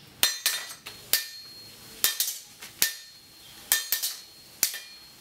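Blacksmith's hand hammer striking metal on an anvil, about one blow a second with some in quick doubles, each blow ringing briefly.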